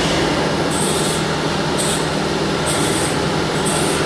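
Steady machine noise: an even rumble with a low hum, and short high hisses about once a second.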